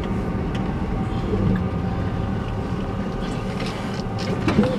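1994 Ford F-150's 5.0-litre V8 running steadily at low revs while the truck is manoeuvred at parking speed, heard from inside the cab as a steady low hum.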